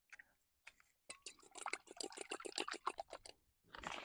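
Two eggs being beaten with a fork in a metal bowl: a fast, even run of clinks and wet slaps, about eight strokes a second, lasting a couple of seconds. Near the end there is a short rustle and a soft thud.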